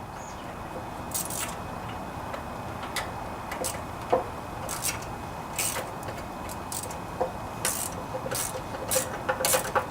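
Scattered metallic clicks and clinks of a wrench working the stiff mounting nuts on a small-engine carburetor, over a steady background noise.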